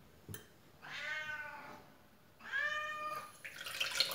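Tabby cat meowing twice, each meow about a second long and the second starting about a second and a half after the first. A brief rustling scuffle follows near the end.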